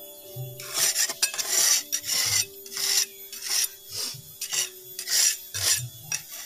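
Metal putty-knife blade scraping along a stone grave surface in quick repeated strokes, about two to three a second, starting about a second in. Soft background music runs underneath.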